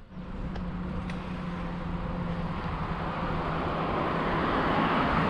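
A motor vehicle on the road, a steady engine hum with tyre noise, growing gradually louder as it approaches.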